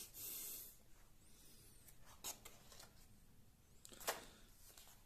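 Faint paper rustle of a large hardcover comic album's pages being turned: a soft swish in the first second, then a couple of light clicks of the pages about two and four seconds in.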